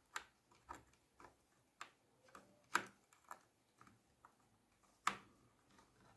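Light, irregular clicks and taps of small laptop parts being handled as the wireless card is fitted, with two sharper knocks about 3 and 5 seconds in.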